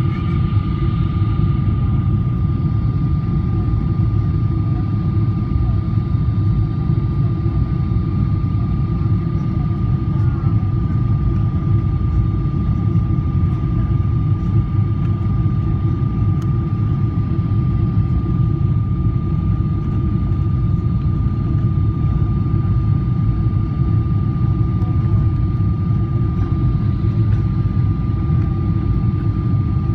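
Cabin noise inside a Boeing 777-300 with Rolls-Royce Trent 892 engines on its approach to land: a loud, steady low rumble of engines and airflow, with a thin steady whine above it.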